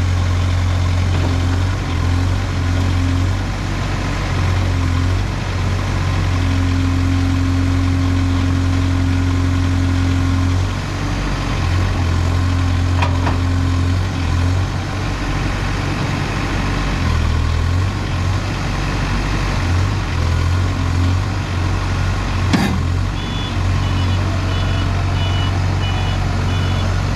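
Diesel engine of a Case 851EX backhoe loader running steadily at low revs, its hum dipping and coming back now and then. There is a single sharp click about 22 seconds in, and an intermittent reversing alarm beeps near the end.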